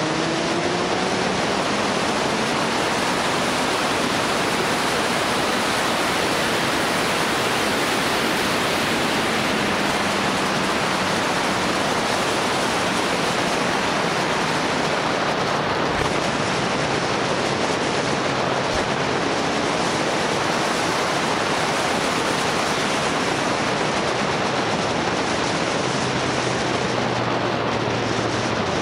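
Wind rushing over the microphone of a camera on a moving motorbike: a steady, loud roar that all but buries the motorbike's engine. The engine's faint hum shows through near the start and again near the end.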